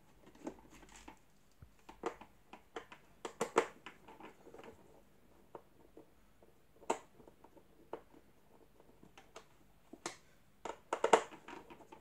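Scattered clicks, taps and rattles of plastic parts as the steering housing of a Dyson DC37 vacuum cleaner is handled and worked loose by hand, with louder clusters of clicks about three and a half seconds in and near the end.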